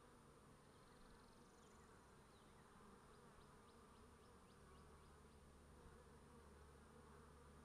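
Faint, steady buzzing of honeybees flying around a hive entrance.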